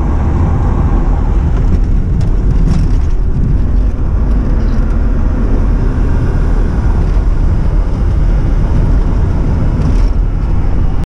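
Steady engine and road noise inside the cab of a Chevy G20 van cruising on a highway, mostly a low rumble.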